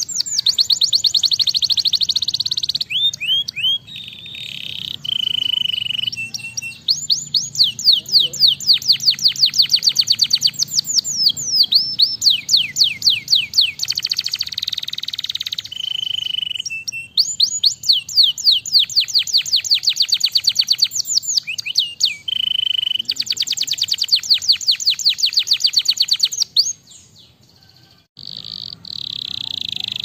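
Domestic canary singing a long, continuous song. It runs through fast trills of evenly repeated sweeping notes, dense rolls and short held whistles, with only brief breaks, one of them near the end.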